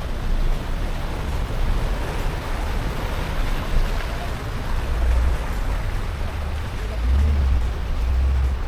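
Mitsubishi Pajero 4WD on the move, a low engine rumble under a steady rushing noise, the rumble swelling in the last couple of seconds.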